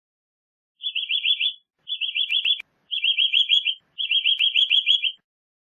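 Eurasian nutcracker calling: four quick bursts of rapid, high repeated notes, each burst about a second long, with short gaps between them.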